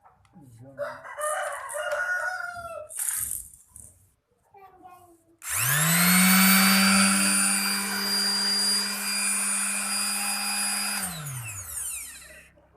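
NRT-Pro 920HD electric sander switched on: its motor spins up quickly to a steady high whine, runs about five seconds, then is switched off and winds down. Voices are heard in the first few seconds.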